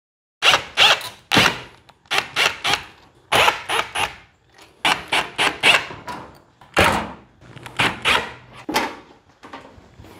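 Screws being backed out of a metal electrical breaker-panel cover with a screwdriver, squeaking and rasping in a long run of short strokes, about three or four a second.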